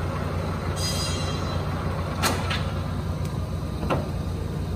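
Steady low machine hum, with a short hiss about a second in and two sharp metal clicks or knocks later on.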